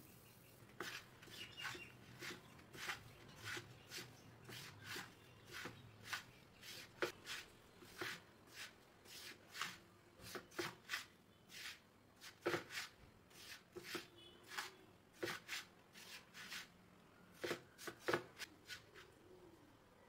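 Crumbly poha laddu mixture being stirred and worked in a pan: irregular scraping and tapping strokes, about one or two a second.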